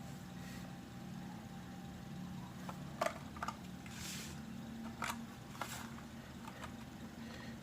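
Handling noise: a few scattered clicks and knocks and a couple of brief soft rustles, over a steady low hum.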